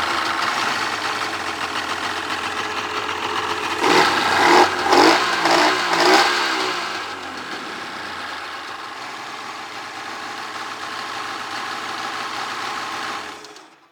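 2000 Polaris Virage TX 1200 carbureted jet ski's two-stroke engine running just after start-up, blipped to about four quick revs a few seconds in, then settling to a steady idle before being shut off near the end.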